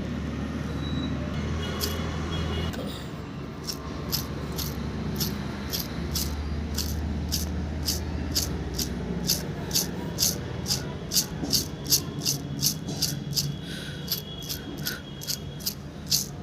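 Worn AC compressor pulley bearing turned by hand, giving a long run of sharp clicks, about two to three a second, over a steady low hum; the rough, clicking rotation is the sign of the failed bearing behind the grinding noise at start-up.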